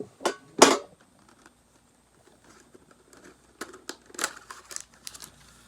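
Plastic shrink-wrap on a Pokémon TCG collector's tin being torn open: two sharp rips near the start, the second the loudest, then a run of short crinkles and crackles in the second half.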